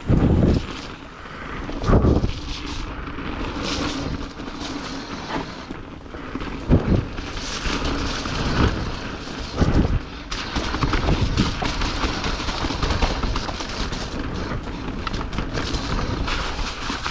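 Mountain bike riding down a wet trail: a steady rush of wind and tyre noise on the ride camera's microphone, with several heavy thuds as the bike hits bumps.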